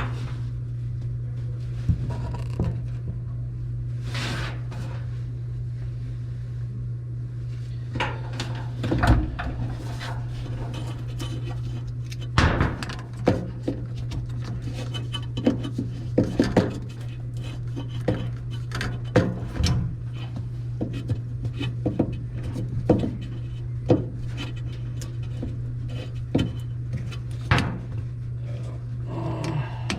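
Scattered clinks, knocks and rattles of a washing machine's suspension rod and cabinet being handled as the rod is worked into place on the drum, growing frequent about a quarter of the way in. A steady low hum sounds throughout.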